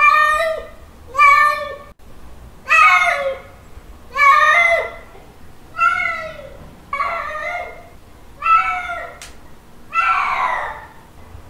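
Male cat's mating calls: a series of about eight drawn-out meows, one every second or so, each rising and then falling in pitch.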